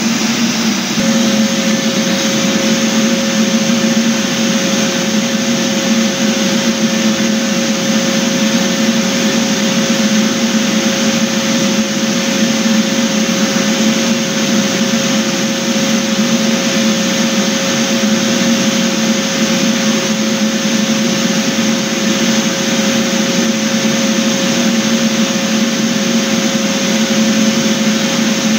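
Electric floor sanding machine running steadily, its motor and dust extraction giving a continuous noise, with a steady whine joining about a second in.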